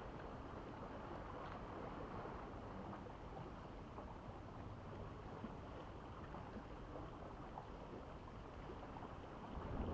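Steady low rushing of wind and sea water washing against shoreline rocks.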